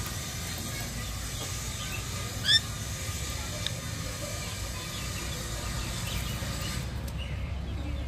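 Budgerigar giving one short, sharp, slightly rising chirp about two and a half seconds in, with a few fainter budgie chirps scattered around it, over a steady low background rumble.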